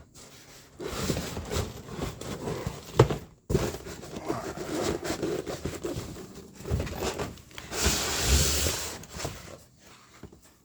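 A taped and stapled cardboard box being worked open by hand: scraping and rustling of cardboard, a sharp snap about three seconds in, and a longer tearing rasp near the end.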